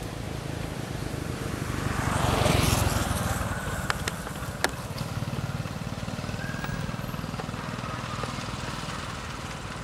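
A motor vehicle passing, its noise swelling to a peak about two and a half seconds in and then fading, over a steady low rumble. A few sharp clicks come around four seconds in.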